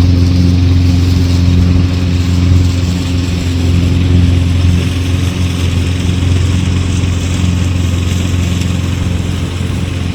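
Toro Smart Stow self-propelled gas push mower's engine running steadily, gradually getting fainter toward the end.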